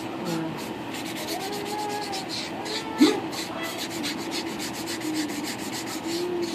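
Nail file rubbing on acrylic nails in quick, even back-and-forth strokes, about four a second, shaping the acrylic.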